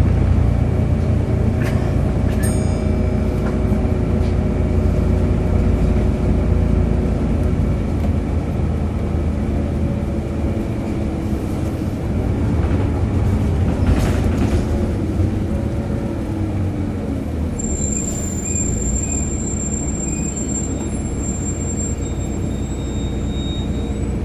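Volvo B7RLE diesel single-decker bus running, heard from on board: a steady low drone with a groaning hum of several held tones. About halfway through one tone slides down in pitch as the bus slows, and a thin high whistle comes in for the last few seconds.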